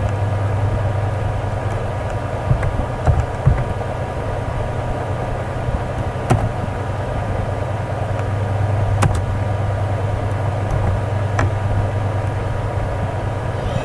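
Steady low electrical hum with a hiss of background noise, broken by a few sharp, scattered clicks of computer keyboard keys.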